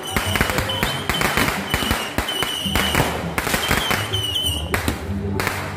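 Firecrackers and fireworks going off: a dense run of sharp cracks and pops in quick succession.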